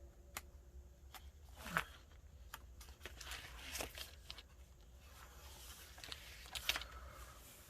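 Pages of a handmade paper-and-fabric journal being turned and handled: soft paper rustles and light taps, in a few short bursts.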